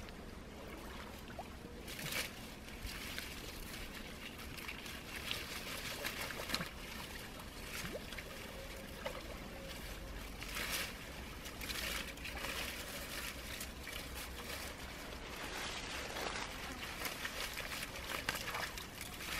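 Irregular rustling and light trickling of water among dense leafy pond plants as a person wades and works through them by hand, with many short rustles.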